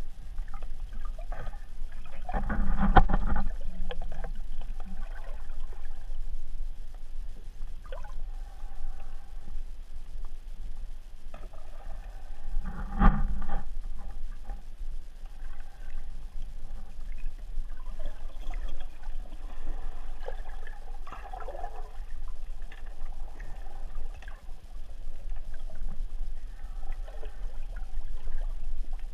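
Muffled water noise picked up by a submerged camera, with a steady low hum underneath. Two louder swells of water noise come about three seconds and thirteen seconds in, each lasting about a second.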